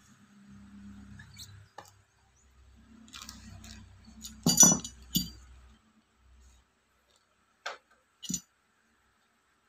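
Spray-gun accessories being handled and set down during unboxing: low rubbing and rustling, then a few sharp clinks of hard parts about halfway through, and two short clicks near the end.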